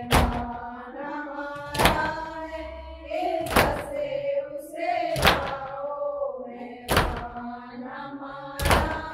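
A nauha lament sung in long, wavering held notes, kept in time by matam, the sharp strikes of hands beating on chests, about every 1.7 seconds, six in all.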